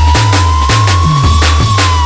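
Loud electronic dance music from a DJ set: a deep repeating bass line under sharp percussion hits about twice a second, with a high synth tone gliding slowly upward and turning down near the end.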